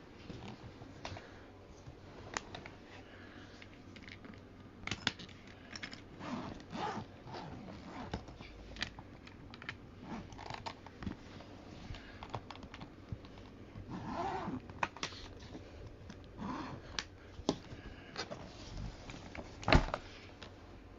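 Irregular light clicks, taps and rustles of a hardshell suitcase being handled, with one louder knock shortly before the end.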